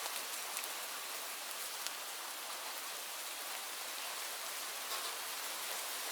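Steady rain falling: an even hiss of rain with a few sharper drops ticking now and then.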